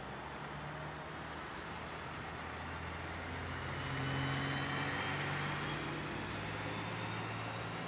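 Road traffic: a motor vehicle's engine hum and tyre noise build to their loudest about halfway through as it passes, over a steady background of street traffic.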